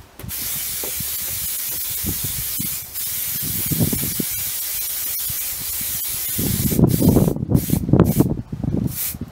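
Aerosol spray can of grey primer spraying in one long continuous hiss, broken briefly about three seconds in, then giving way to short stop-start bursts near the end.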